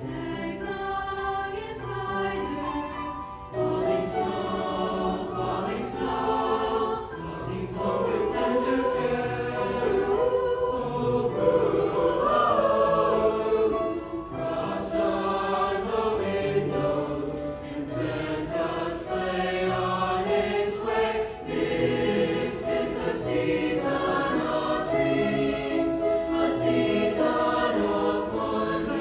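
Mixed-voice high-school choir singing in harmony, holding long notes that shift together from chord to chord.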